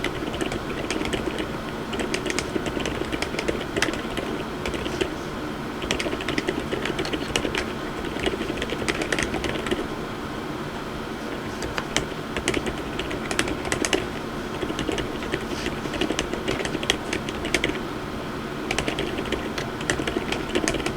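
Typing on a MonsGeek M1W mechanical keyboard fitted with low-noise, light Outemu Lime switches and Kuromi keycaps: quick runs of keystrokes broken by short pauses.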